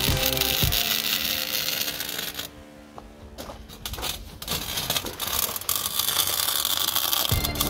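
Electric arc welding crackling and hissing over background music. The music drops out about a second in. After a short lull near the middle come scattered clicks and rustling, and the music returns just before the end.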